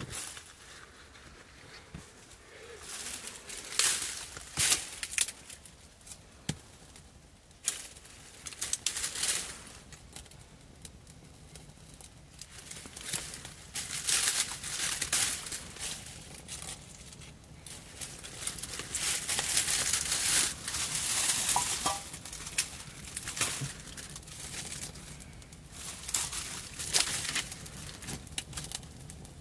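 Irregular bouts of rustling and crinkling, with sharper crunches every few seconds and short quiet gaps between them.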